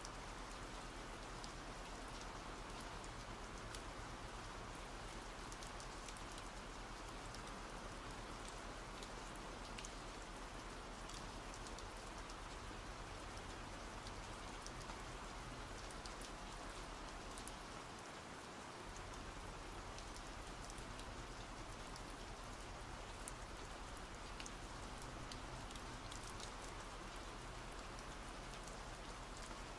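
Steady, soft rain: an even hiss sprinkled with many light drop ticks.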